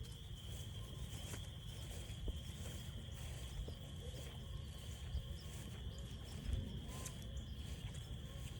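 Frogs calling in a dense evening chorus: a steady high-pitched trilling, with a shorter call repeating about every two seconds.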